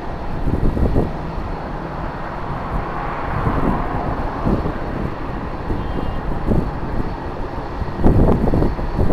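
Airliner's jet engines running, swelling and easing slightly in the middle, under strong wind buffeting the microphone, which gusts harder near the end.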